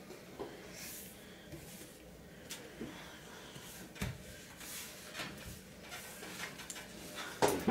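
Small paper slips being picked up off a table and gathered in the hands: soft rustles and light taps, with a louder rustle and knock near the end.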